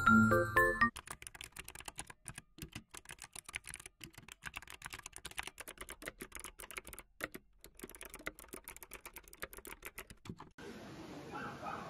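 Computer keyboard typing sound effect: many quick, irregular key clicks, heard as the name is typed out on screen. The clicks begin after a short tail of chiming music and stop a little before the end, where a soft hiss and music come in.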